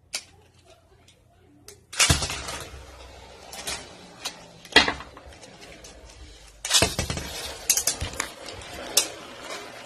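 Two Beyblade Burst spinning tops launched into a plastic stadium about two seconds in, whirring with a steady hiss and clashing with sharp clinks several times.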